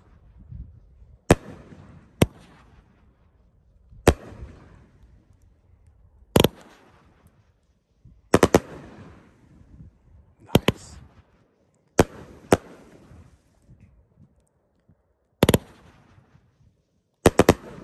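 Red Lantern Tropical Tiki Bar 500-gram 16-shot fireworks cake firing: a series of sharp bangs at uneven gaps of one to three seconds, some coming in quick pairs or triples, each fading out over about a second.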